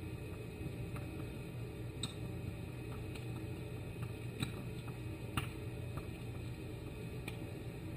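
A few faint, irregular clicks and ticks of a flat screwdriver working the screws of an outboard engine carburetor's side plate, over a steady low hum.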